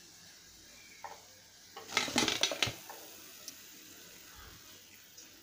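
Faint sizzle of deep-frying oil. About two seconds in there is a quick burst of metal clatter, under a second long: a steel slotted ladle knocking against the pan or plate as the fried bondas are tipped out.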